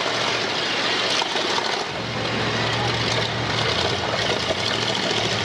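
Big demolition-derby cars' engines running hard as they push and shove against each other, a dense steady engine noise with a low drone settling in about two seconds in.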